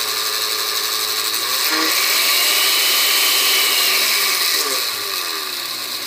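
Oster blender motor running at its second speed with the empty glass jar fitted, a steady whir that gets somewhat louder about two seconds in. The motor's drive coupling and the jar's blade assembly are newly replaced after the jar had been slipping, and the blades turn without slipping.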